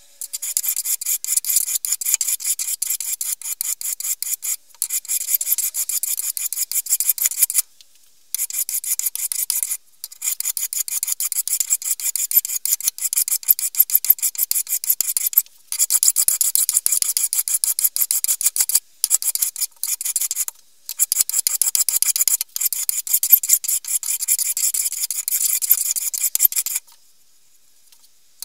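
Hand file rasping across the steel head of an old fireman's axe held in a vise, in quick repeated strokes. The strokes come in runs with brief breaks and stop about a second and a half before the end.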